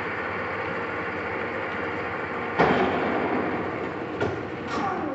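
1981 Lodge & Shipley Powerturn engine lathe running under power, with a steady mechanical drone and gear whine. A sharp clunk comes about two and a half seconds in and a lighter knock a little later, then the whine falls in pitch as the sound eases off near the end.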